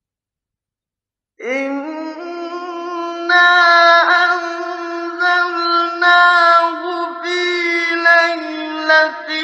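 Quranic recitation by a male reciter: after about a second and a half of silence, the voice comes in and holds long, ornamented melodic notes, with several short pauses between phrases.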